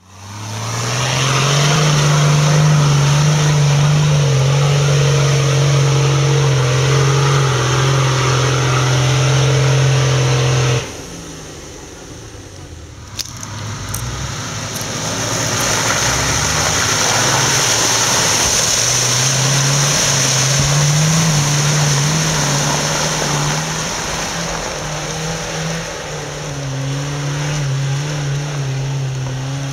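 Off-road 4x4 engine running at steady revs, a loud drone that cuts off abruptly about eleven seconds in, then engine sound builds up again a few seconds later with a steady hiss over it.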